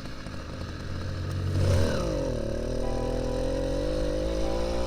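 80cc two-stroke motorized-bicycle engine under way. Its pitch dips and swings back about two seconds in, then climbs steadily as the bike accelerates. The exhaust cap has been sawn down inside.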